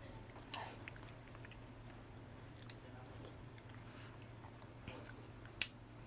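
Victorinox Swiss Army knife's tools being handled and snapped shut, with a sharp click about half a second in, a few light ticks, and a louder snap near the end.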